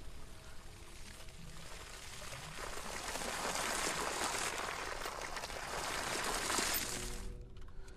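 Water gushing from a hose and splashing onto sand, building up a couple of seconds in and cutting off suddenly about seven seconds in.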